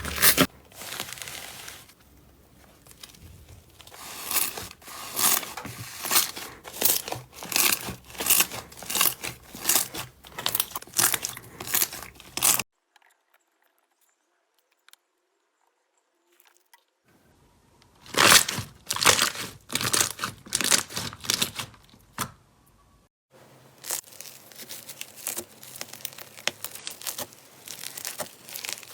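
Slime being squeezed and pressed by hand, giving a run of crackling, crinkly pops. The crackling stops for a few seconds near the middle, then starts again.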